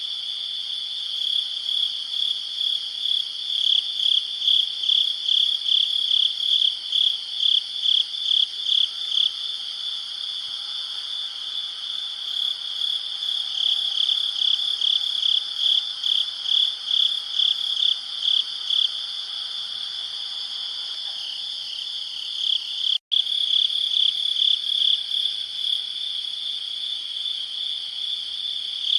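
Night crickets chirping, a high pulsing chorus at about two chirps a second over a steadier trill. The sound cuts out for an instant about 23 seconds in.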